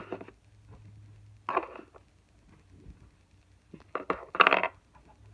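Plastic animal figurines being handled and set down on a wooden shelf: a few short knocks and clatters, the loudest a little over four seconds in.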